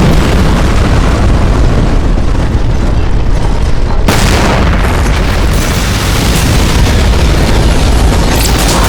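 Loud, sustained explosion-like rumbling sound effect, heavy in the bass, with an abrupt change in the sound about four seconds in.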